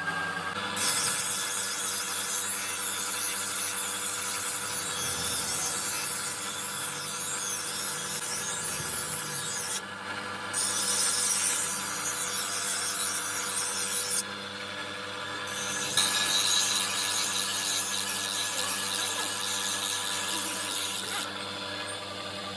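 Sickle blade being sharpened by hand, a continuous rasping of the sharpening tool scraping along the steel edge, with short breaks about ten seconds in, around fifteen seconds and near the end.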